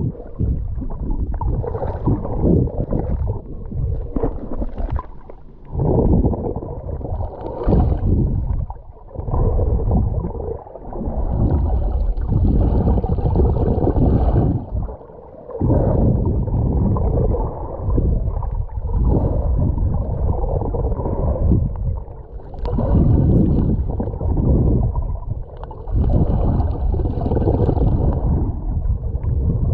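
Wind buffeting the microphone in uneven gusts over the sound of the sea, with a higher hiss of water coming and going several times.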